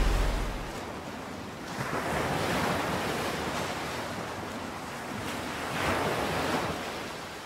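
Ocean surf washing onto a beach. It swells about two seconds in and again around six seconds, then fades out near the end. A low wind rumble on the microphone dies away in the first second.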